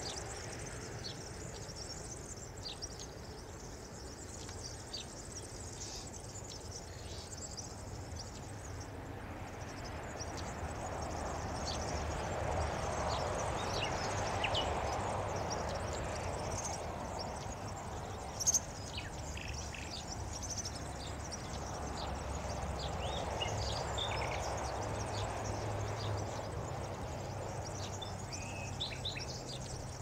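Small songbirds giving short, high chirps and calls scattered throughout, over a steady low background rumble. The background swells twice, once around the middle and again later, and there is one brief sharp sound a little past the middle.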